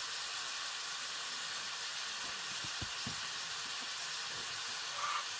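Food sizzling as it cooks: a steady hiss, with a few soft knocks around the middle and a brief high note near the end.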